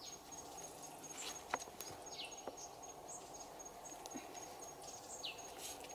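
Faint outdoor ambience: a high, evenly pulsing insect-like note, with a short high falling chirp about every three seconds and a few faint clicks.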